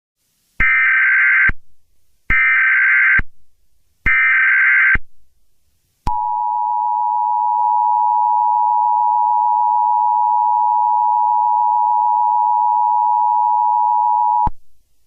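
Emergency Alert System SAME header: three short bursts of screechy digital data, about a second each, followed by the EAS attention signal. The attention signal is a steady two-tone alarm held about eight seconds before cutting off, marking the start of an emergency alert broadcast.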